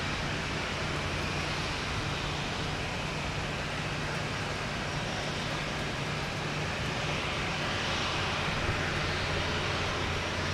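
Airport ambience: the steady rush and low hum of jet aircraft engines idling on standby, swelling slightly about eight seconds in.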